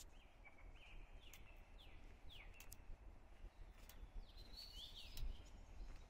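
Faint songbird song: a phrase of slurred whistled notes, several sliding downward, then a shorter, higher phrase about four seconds in, over a low steady rumble.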